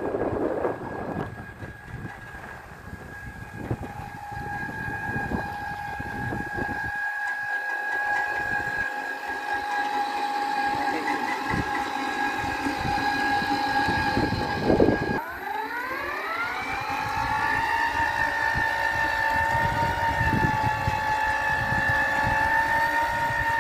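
Battery-electric power tiller's 60 V brushless DC motor and gearbox whining steadily while it tills, with irregular knocking underneath. About fifteen seconds in there is a thump, the whine drops out briefly and comes back rising to a higher steady pitch.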